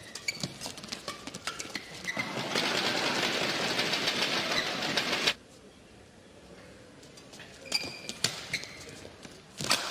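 Badminton rally: sharp knocks of rackets striking the shuttlecock and short squeaks of court shoes. A loud even rush of noise sets in about two seconds in and stops abruptly about three seconds later, then the hits and squeaks return.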